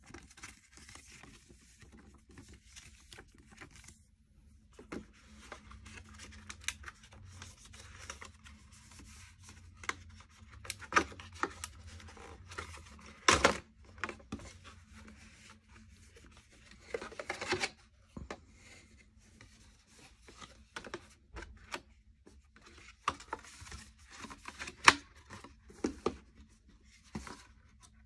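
Paper and cardboard packaging being handled: a folded paper leaflet rustling, and a cardboard box and insert scraping and sliding, with scattered taps and knocks. The loudest knocks come about halfway through and near the end.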